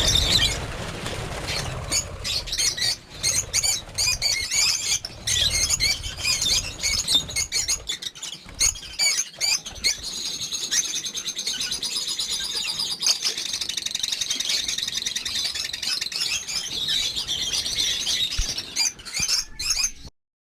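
A flock of lovebirds chattering with high, rapid chirps and squawks, mixed with frequent sharp clicks. The chatter grows denser and more continuous about halfway through, then stops abruptly near the end.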